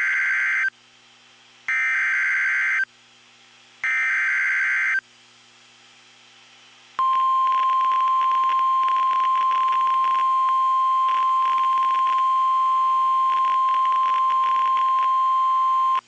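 NOAA Weather Radio emergency alert for a severe thunderstorm warning. It opens with three short, screeching SAME header data bursts, about a second each and about two seconds apart. About seven seconds in, the steady 1050 Hz warning alarm tone starts and holds, with radio static crackling under it.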